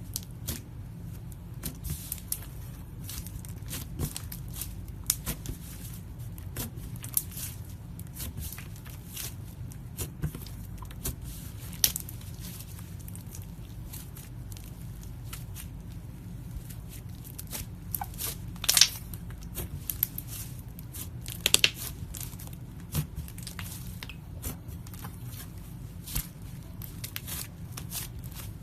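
Slime being squeezed and worked by hand, giving irregular sharp pops and crackles, with a few louder pops near the middle and about two-thirds of the way in.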